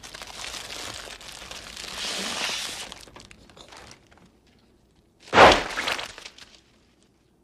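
A rushing noise that swells and then cuts off, followed a second later by a single loud crash that dies away within about a second.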